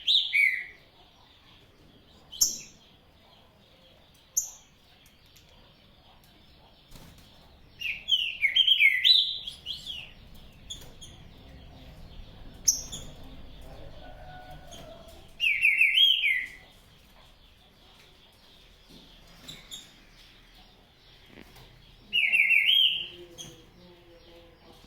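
Green-winged saltator (trinca-ferro) singing: short loud phrases of several quick slurred whistled notes, given four times a few seconds apart, with single sharp call notes in the gaps.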